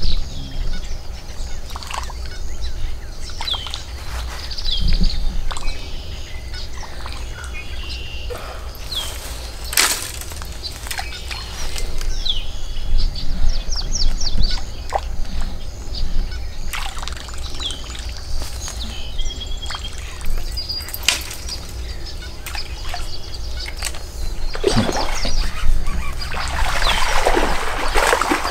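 Small birds chirping in short repeated calls, with a few sharp clicks and a steady low hum. In the last few seconds a noisy swell of splashing rises as a small largemouth bass thrashes at the surface on the line.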